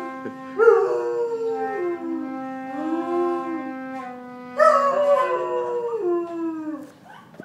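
A German Shepherd howling along to a flute. Two long howls start loud about half a second and four and a half seconds in, each sliding down in pitch. Under them the flute holds steady notes until about five seconds in.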